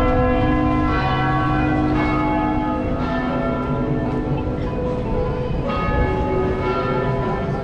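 Church bells of Montreal's Notre-Dame Basilica pealing: several bells of different pitches struck in turn, a new strike about every second, their tones overlapping and ringing on.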